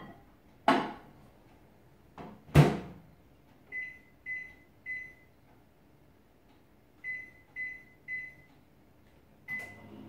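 Panasonic inverter microwave oven being loaded and set: a couple of knocks, then the door shuts with a loud clunk about two and a half seconds in. Keypad beeps follow: three short beeps, a pause, three more, and a single beep near the end as the oven is started.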